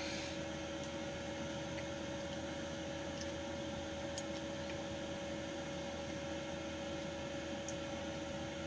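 Steady electrical hum, holding two steady pitches over a background hiss, with a few faint ticks.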